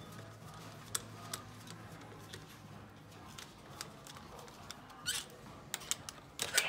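Light metallic clicks and taps of a hand tool working at a Ford 2.4 turbodiesel cylinder head, over a faint steady low hum. A few louder clicks come near the end.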